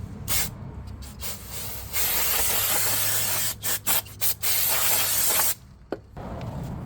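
Aerosol brake parts cleaner hissing onto a new brake rotor to strip off its anti-rust oil: a few short spurts, a long spray of about a second and a half, several quick bursts, then another steady spray that cuts off sharply.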